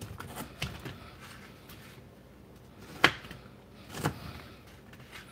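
Crinkle-cut knife chopping through raw potato slices into thin strips, the blade knocking on the cutting surface. A few soft chops come first, then two sharper ones about three and four seconds in.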